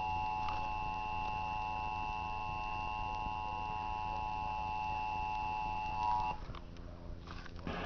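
Emergency Alert System attention signal: the steady two-tone alert (853 Hz and 960 Hz sine tones sounded together) ahead of a tornado warning. It cuts off about six seconds in, leaving a low hum.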